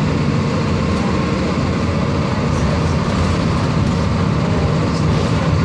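Volkswagen 17.230 EOD bus engine running steadily, a deep even drone with no change in pitch.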